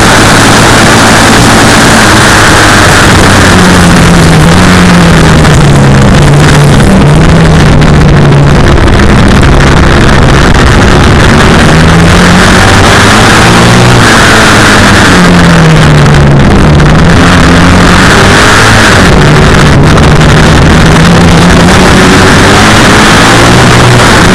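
Classic racing sidecar outfit's engine heard onboard at speed, its revs climbing and dropping again and again through the gears and corners, over a constant rush of wind noise.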